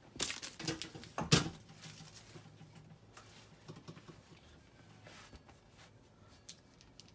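Close handling noise: a few rustles and sharp clicks in the first second and a half, the loudest about a second in, then only faint scattered ticks.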